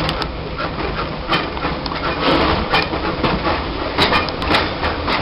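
Disneyland Railroad train running on its rails: a steady low rumble with irregular clicks and clacks from the wheels and cars.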